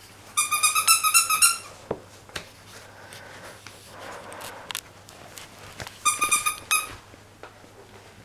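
A squeaky dog toy squeaked in two quick runs of short, high squeaks, as if bitten over and over, near the start and again about six seconds in, with a few soft knocks between.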